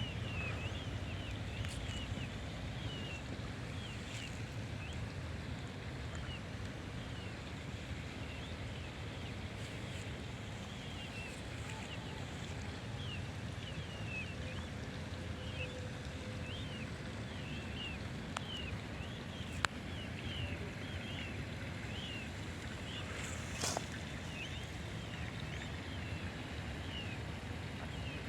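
Small birds chirping over and over in short, quick chirps above a steady low background rumble. A single sharp click about two-thirds of the way in, and a brief rustle a few seconds later.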